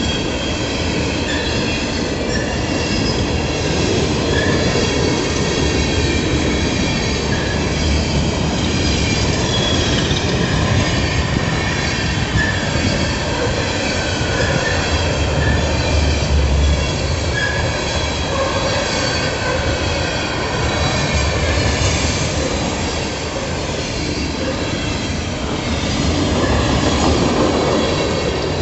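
Coal train's hopper cars rolling past close by: a steady rumble of steel wheels on the rails, with high, sustained squealing tones from the wheels running under it.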